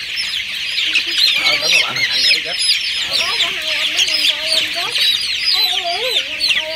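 A flock of young chicks, about 24 days old, peeping continuously in many overlapping high-pitched chirps. From about three seconds in, a lower wavering voice-like sound is heard beneath them.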